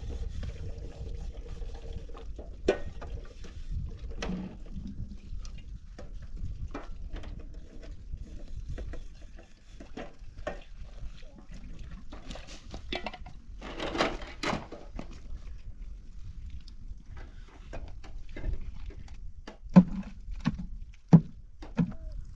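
Scattered light knocks and clatter, irregular, with a few sharper knocks near the end.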